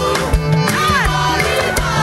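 Gospel choir and lead vocalists singing through microphones over a live band, with a walking bass line and steady drum hits.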